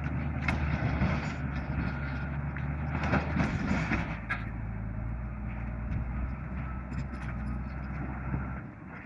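Bulldozer diesel engine running steadily, its note shifting about a third of the way in, with scattered short clanks over it; the engine sound drops away just before the end.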